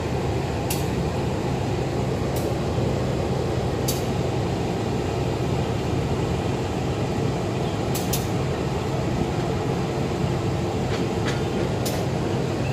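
Passenger train running with a steady low drone, with a few scattered sharp clicks over it.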